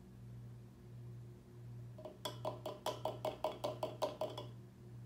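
Glycerin glugging out of a small upturned bottle into a one-gallon glass jug: a quick run of about fifteen short ringing gulps, about six a second, starting about two seconds in and stopping after two and a half seconds. A steady low hum lies underneath.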